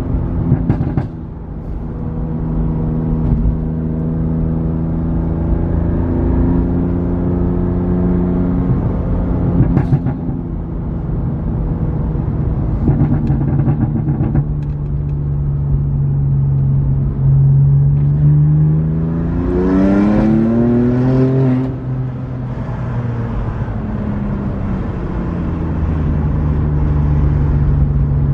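BMW M2 Competition's twin-turbo straight-six running through an aftermarket cat-back exhaust while driving. It holds a steady drone whose pitch steps and shifts, with brief sharp cracks near the start and about ten seconds in. About two-thirds of the way through it revs hard, rising in pitch, then falls back to a steady drone.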